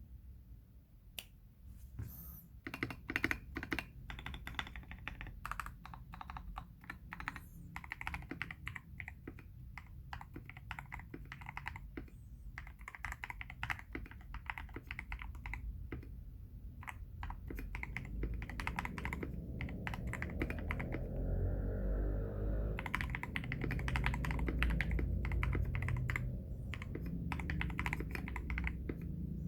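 Typing on a KBD67 Lite R3 mechanical keyboard with lubed Everglide Aqua King 62gf linear switches and XDA-profile PBT keycaps: runs of quick keystrokes broken by short pauses, with a dense, faster flurry in the middle.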